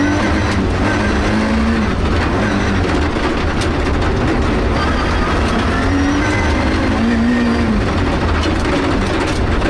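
Rally car at full speed on a gravel stage, heard from inside the cabin: the engine revs rise and fall several times as it is driven hard, over a constant din of tyre and gravel road noise.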